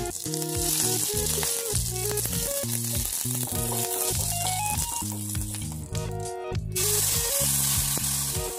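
Curry leaves and dried red chillies sizzling in hot oil in a kadai as a spoon stirs them, the hiss breaking off briefly about six seconds in and then coming back. Background music plays under it.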